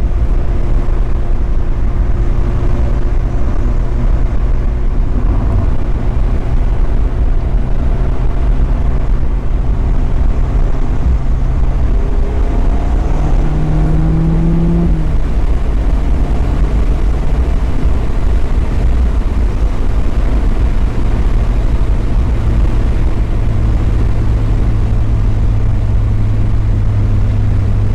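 Mazda Miata's four-cylinder engine running steadily on the road, over a constant low rumble. About halfway through the engine pitch rises briefly, then falls back to a steady drone.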